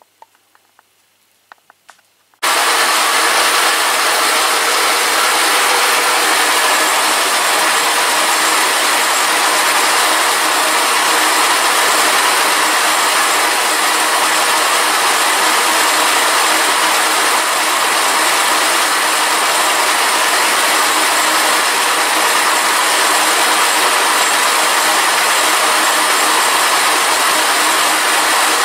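Milling machine face cutter skimming the gasket face of a Peugeot-Citroën 2.0 HDi aluminium cylinder head: a loud, steady machining noise with several held tones. It starts abruptly about two seconds in, after a few faint clicks.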